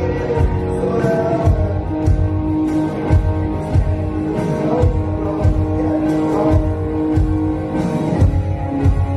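Live rock band playing: a steady kick-drum beat about twice a second under guitar and a Nord stage keyboard holding sustained chords.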